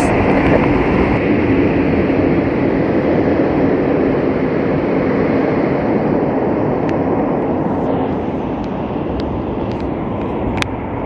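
Metro train pulling out of an underground station, a loud rumble that fades away over several seconds.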